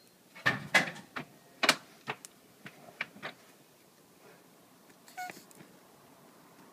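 Male tortoise mating, giving a run of short, sharp squeaks and knocks as he thrusts against the female's shell: about eight in the first three and a half seconds, then one more cluster a little after five seconds.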